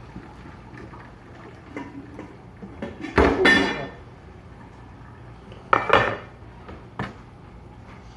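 Metal pots, pans and utensils clattering: a loud, ringing clank about three seconds in, then two shorter knocks near six and seven seconds.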